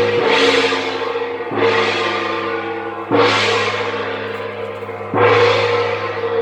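Large gong struck four times, each stroke ringing out in a long shimmering decay over steady low tones.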